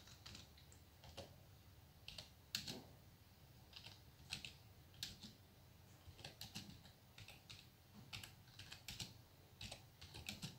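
Faint, irregular keystrokes on a computer keyboard as a line of text is typed, with uneven pauses between the clicks.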